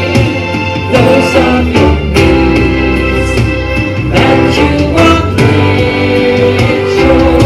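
Choir singing a song live through microphones, with instrumental accompaniment.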